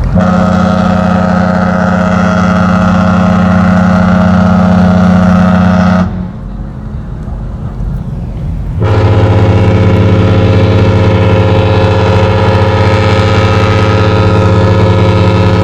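Genting Dream cruise ship's horn (typhon) sounding two long blasts, the first about six seconds and the second about seven, with a short pause between. The second blast is deeper than the first.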